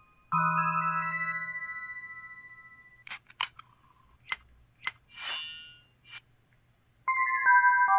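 System sound effects from the IMB-1000 phone's Yamaha YMU765 synthesizer chip. A bright chiming jingle fades over about two and a half seconds, then comes a run of sharp clicks and short hissing bursts, and about seven seconds in another bright chime melody begins.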